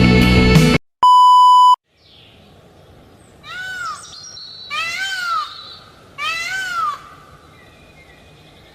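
A loud electronic beep lasting almost a second, then three loud drawn-out calls of a peacock (Indian peafowl), each rising and falling in pitch, about a second and a half apart.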